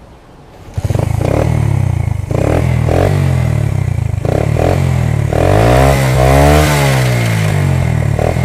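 A 70cc motorcycle's single-cylinder four-stroke engine catches on the kick-start about a second in, then runs through an aftermarket China-style silencer with a deep, bassy note. It is blipped several times, with one longer rev that rises and falls near the middle.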